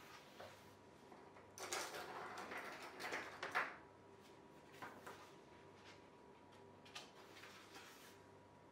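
Close handling noises: a rustle lasting about two seconds, followed by two light clicks or taps a couple of seconds apart.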